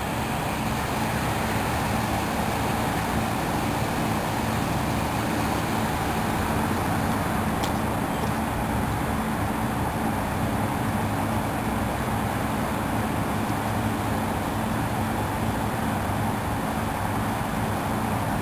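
A motor vehicle's engine running steadily, with a constant low hum and rushing noise that does not change.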